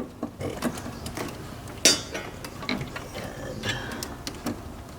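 Plastic wire-harness connectors being worked loose and unplugged from a vending machine's bill acceptor: a string of irregular clicks and rattles, with one sharp, loud click just under two seconds in.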